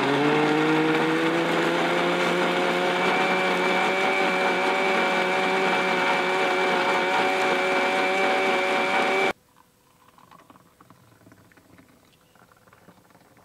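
Electric mixer grinder running at full speed while grinding watermelon. Its hum rises in pitch over the first few seconds as the motor comes up to speed, then holds steady until it is switched off abruptly about nine seconds in.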